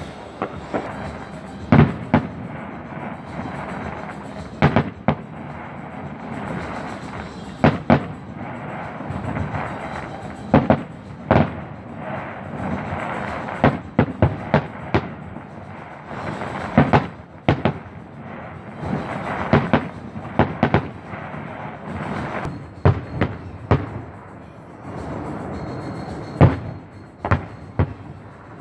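Fireworks display: aerial shells bursting in an irregular series of sharp bangs, about twenty in all, some in quick pairs, over a continuous rumble.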